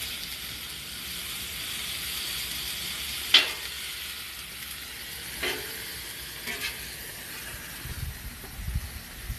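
Sliced ribeye steak and onions sizzling steadily on a hot griddle plate, stirred with a metal spatula that clacks against the griddle three times, loudest about three seconds in.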